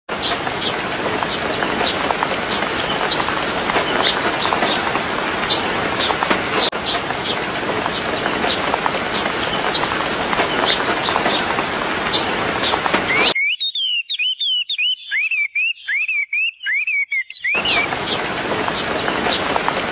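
Birds chirping in short notes over a loud, steady hiss. About thirteen seconds in, the hiss cuts out and, for about four seconds, a bird gives a quick series of clear arched chirps. Then the hiss and scattered chirps resume.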